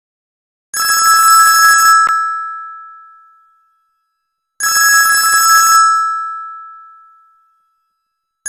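Sony Ericsson J110 phone ringtone played on a Yamaha MA-7 mobile synthesizer: a trilling ring about a second long, repeated about four seconds later. Each ring leaves two steady tones fading out, and a third ring starts near the end.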